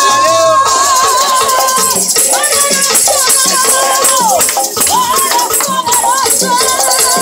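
Lively praise music with maracas and a tambourine shaken along in rhythm, under a wavering melody line that sounds like a singing voice.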